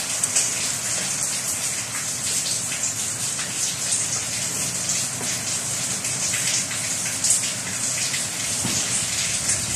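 Steady rain: a dense, even crackling hiss of drops falling on a surface.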